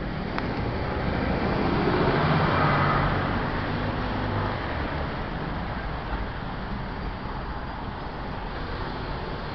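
Road traffic: a motor vehicle passes close by, its engine and tyre noise swelling to the loudest point about two to three seconds in, then easing back to a steady traffic hum.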